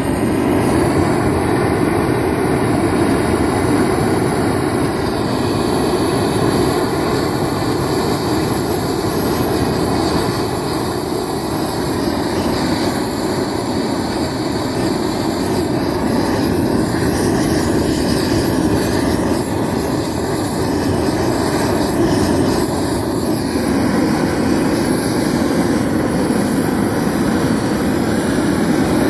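Propane weed-burner torch (a Harbor Freight "flame thrower") burning at full flame with a loud, steady rush.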